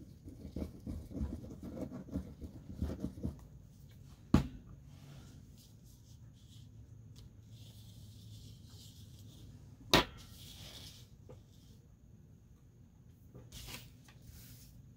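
Paper being handled on a tabletop: a stretch of crinkling and rubbing at first, then two sharp clicks a few seconds apart, with paper sliding and a short scrape near the end.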